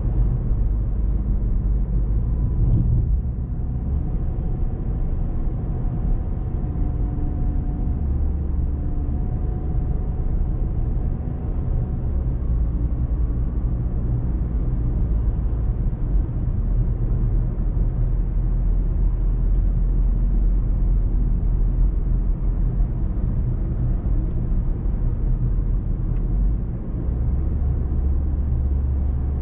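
A car driving along a road: a steady low rumble of engine and road noise, with faint engine tones that drift slightly in pitch and a brief dip in level near the end.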